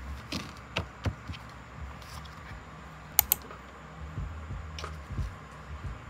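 Scattered light clicks and taps of small objects being handled on a work surface, with two sharp clicks in quick succession about three seconds in.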